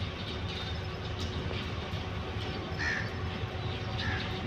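A crow cawing twice, short calls about a second apart in the second half, over the steady low rumble of a distant diesel locomotive approaching the station.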